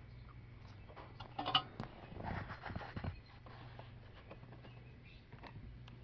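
Faint handling noises from an electronic control module's circuit board being turned over by hand: small clicks and rustles, with a short louder rustle about a second and a half in, over a low steady hum.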